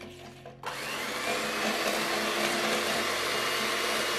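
Electric hand mixer switched on about half a second in, its motor whining up to speed and then running steadily as the beaters whip cold cream in a bowl. The cream is being semi-whipped, not taken to stiff peaks.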